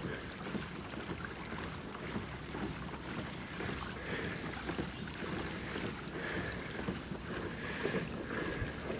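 Boat motor running steadily, with wind rumbling on the microphone.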